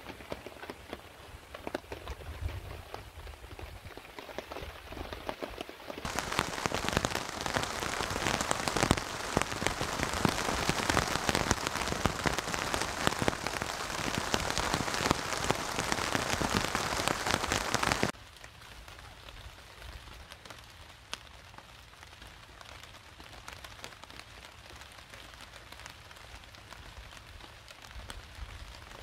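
Heavy rain falling, with many separate drop hits. From about six seconds in to about eighteen seconds in it is much louder and denser, and that stretch starts and stops abruptly.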